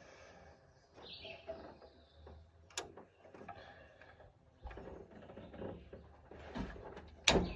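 Faint clinks and scrapes of a spark plug socket being worked on a plug in the engine bay, with a sharp click about three seconds in and a louder knock near the end. Birds chirp faintly in the background.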